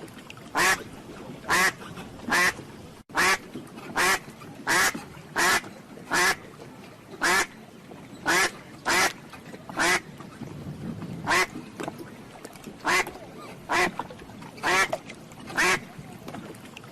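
Duck quacking over and over: short, loud quacks coming about once or twice a second at an uneven pace.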